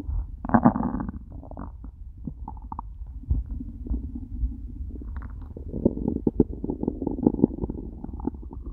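Human stomach growling and gurgling on an empty stomach after a whole day without food: an irregular run of low gurgles and short pops, loudest about half a second in and again between six and seven and a half seconds.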